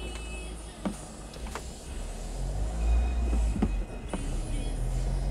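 Car driving at low speed: a steady low engine and road rumble that grows louder about halfway through, with a few sharp clicks over it.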